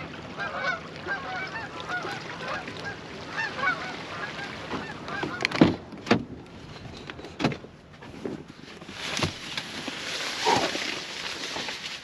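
A flock of geese honking in flight, many short calls overlapping. About halfway through these give way to a few sharp clicks and knocks as a Ford pickup's door is unlatched and opened.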